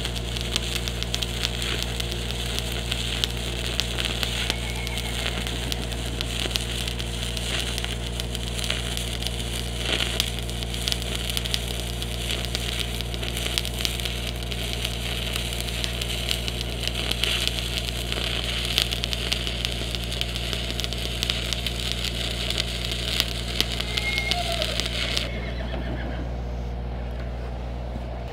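Stick welding arc from a 3/32-inch 7018 rod, crackling steadily over a steady low hum, then breaking off about three seconds before the end.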